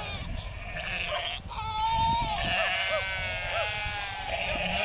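A flock of sheep bleating, many calls overlapping, the loudest a long bleat about two seconds in followed by several shorter ones.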